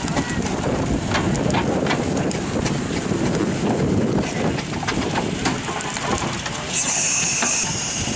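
Steam traction engine running as it drives over grass, its motion giving a dense, irregular patter of knocks and clanks. About seven seconds in, a high steady tone comes in, strongest for under a second, then weaker but lingering.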